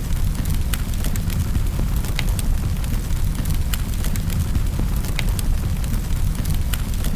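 Wood fire crackling in a fireplace: a steady low rumble of the flames with irregular sharp pops and snaps from the burning logs.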